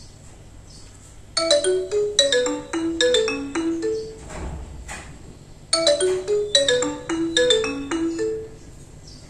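Nokia Asha 203 mobile phone ringtone: a short tune of quick pitched notes, played twice with a short pause between, the first time starting about a second and a half in.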